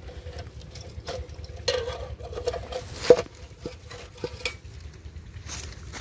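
Dry twigs and brush rustling and snapping as they are handled: a scatter of light clicks and crackles, with one sharper knock about three seconds in.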